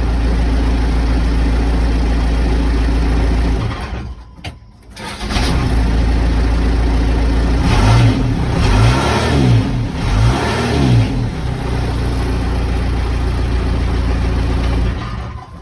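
Case 580 Super L backhoe's diesel engine running after a restart; it had run out of fuel and been bled of air at the injector lines. The sound drops out for about a second a few seconds in, then the engine comes back and revs up and down a few times before settling into a steady run.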